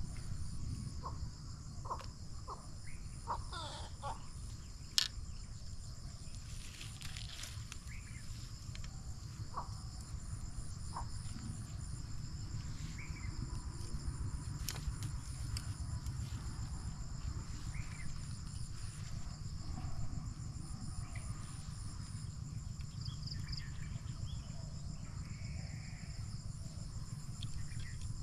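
Insect chorus, a steady high trilling, over a low rumble, with one sharp click about five seconds in.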